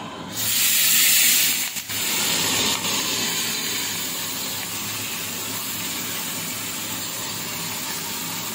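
Small fish in a wet garlic, turmeric and chilli paste hitting hot mustard oil in a steel kadai: a sudden loud burst of sizzling about half a second in. After a couple of seconds it eases into a steady sizzle as the fish fry.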